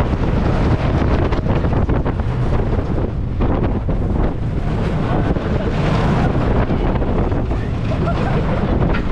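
Loud wind rushing and buffeting on the microphone, with a steady low rumble underneath.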